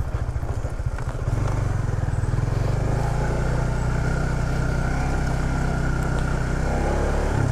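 Honda CBR150R's single-cylinder engine running as the motorcycle is ridden, uneven and pulsing for the first second or so, then steadier and a little louder as it pulls.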